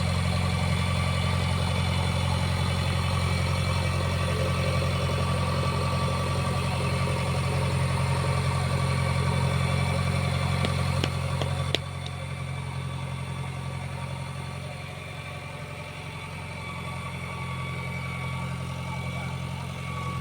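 Backhoe loader's diesel engine running steadily with a deep hum; about halfway through there is a click and the engine sound abruptly gets quieter.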